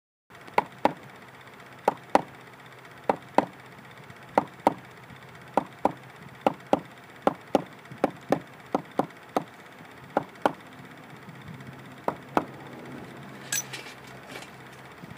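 Mallet striking a caulking iron, driving loops of caulking cotton into the garboard seam of a wooden boat's planked hull. Sharp, short knocks, mostly in pairs, with a quicker run of taps in the middle.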